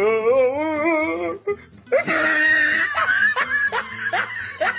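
Laughter sound effect: a long laugh with a strong wobble in pitch, then, after a short pause, a run of quick repeated laughs.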